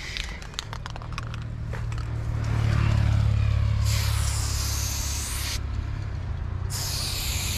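Two long hissing bursts of paint being sprayed, the first about four seconds in and the second near the end, each lasting a second or so. Under them a low rumble swells about two seconds in and stays.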